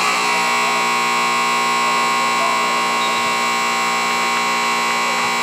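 Basketball arena horn sounding one long, steady blast of about five seconds that starts and stops abruptly: the buzzer ending the game.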